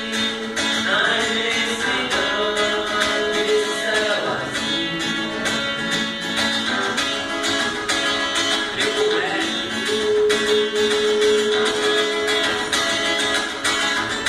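Live song recorded on a phone, thin with little bass: a guitar-led backing over a steady beat, with a sung melody that glides about and then holds one long note in the second half.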